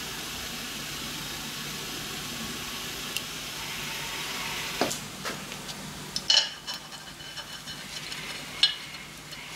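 Steady fizzing hiss from a hot parkerising (phosphate) bath with a steel part hanging in it on a wire. In the second half a knock and several short, sharp metallic clinks come as parts are handled, the loudest about six and a half and eight and a half seconds in.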